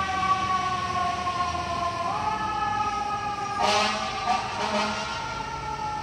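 Fire truck siren wailing: it holds high, slides slowly down, and winds back up about two seconds in. A loud, harsh blast cuts in over it about three and a half seconds in.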